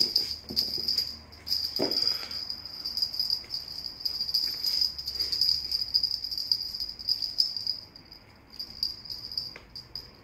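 Small bells on a rope tied to a riding-crop cat toy jingling steadily as the toy is shaken, with a brief knock about two seconds in. The jingling thins to scattered rings near the end.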